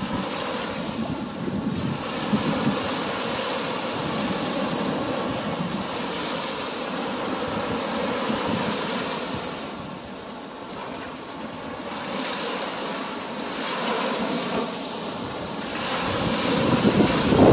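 Small waves breaking and washing up on a sandy beach, the surf rising and falling every few seconds and loudest near the end, with wind on the microphone.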